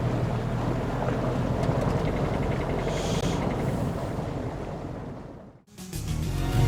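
Wind on the microphone and water noise around a boat, steady, then fading out about five and a half seconds in. Music begins just before the end.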